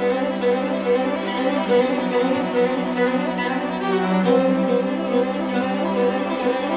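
String quartet playing: a held low note sounds under a repeated figure of short, higher bowed notes, and the lower parts shift about four seconds in.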